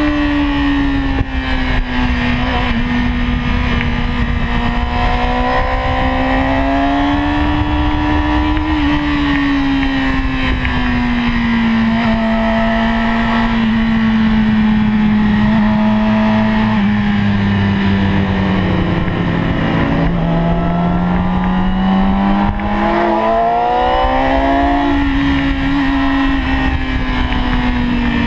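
2008 Yamaha YZF-R6's inline-four engine running hard, heard onboard at track speed. Its pitch drifts up and down with the throttle, drops lowest about two-thirds of the way in, then climbs quickly as the bike accelerates again.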